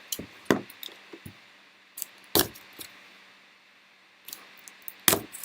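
Scattered light clicks and taps of trading cards and packaging being handled on a table, a dozen or so irregular strokes with a cluster near the end.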